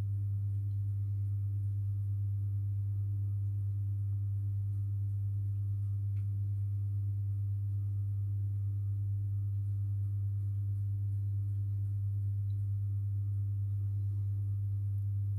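Steady electrical hum from an induction heater rig: one low, pure tone at an unchanging level. A few faint ticks sound above it.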